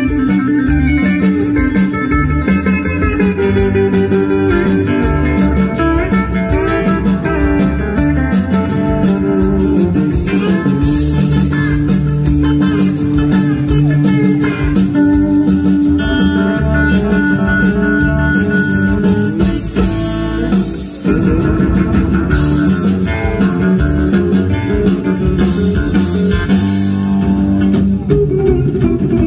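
Live country band playing an instrumental break: electric guitar taking the lead over bass and drums, with a brief stop about two-thirds of the way through before the band comes back in.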